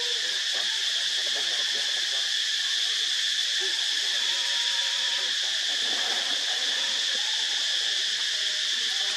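A steady insect chorus buzzing at several pitches at once without a break, with faint wavering sounds underneath.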